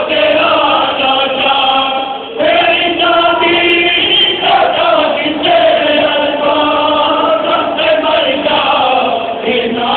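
A group of men's voices chanting together in a Muharram mourning lament (noha), in long held, wavering notes, with a short break about two seconds in.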